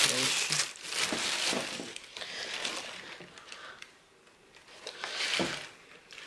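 Tissue wrapping paper crinkling as it is pulled off a sneaker and pushed aside in a cardboard shoebox. The rustle is loudest at the start, then comes in softer bursts, with another short burst about five seconds in.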